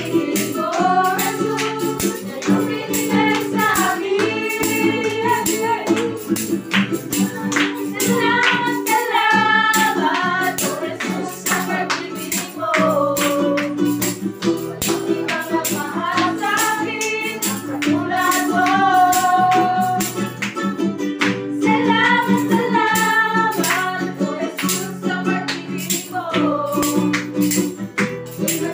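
Live praise-and-worship song: female voices singing a melody over a strummed ukulele and acoustic guitar, with a steady beat of sharp percussive strikes.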